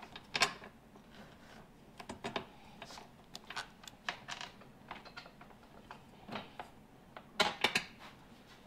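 Scattered light clicks and taps of hands fitting a tractor cab's cowl, threading thumb screws onto its posts, in irregular clusters with a quick run of louder clicks near the end.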